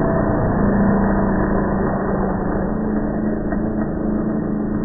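Traxxas Revo 3.3's two-stroke nitro engine running at a steady pitch as the RC truck drives.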